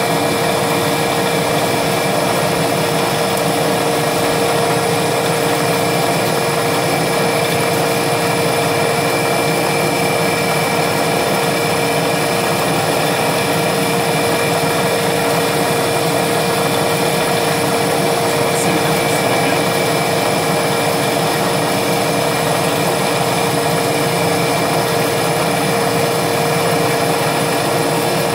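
CNC-controlled milling machine spindle running with a small end mill cutting thin aluminium plate: a continuous machining noise with a steady whine.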